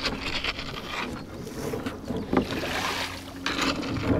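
Pedal kayak working through shallow river water: a steady low hum from the pedal drive, under water rushing and splashing along the hull in uneven bursts.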